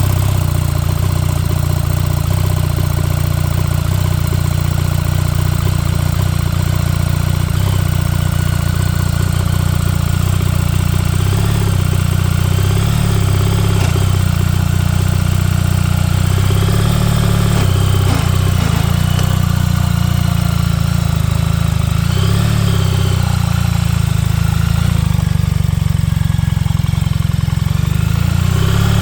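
BMW R1300GS boxer-twin engine running steadily with a grinding noise from the clutch, a fault that shows while the bike is still cold and goes away once it reaches operating temperature.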